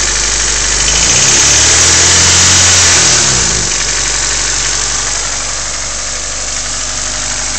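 Honda D15 inline four-cylinder engine idling, revved up once about a second in and settling back to idle a couple of seconds later. It carries the noise the owner can't place as either a rod knock or a valve lifter tick.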